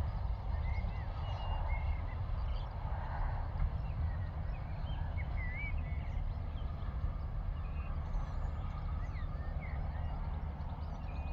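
Small birds chirping in short rising and falling calls over a steady low rumble.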